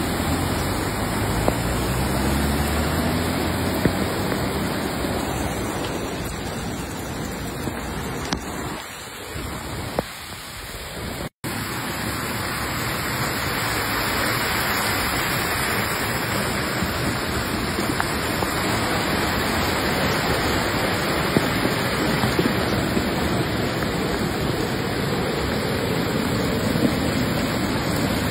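Storm floodwater rushing over a street and pouring down concrete steps: a steady roar of fast-moving water. At the start a small car's engine rises in pitch as it drives through the flood, and the sound drops out for an instant about eleven seconds in.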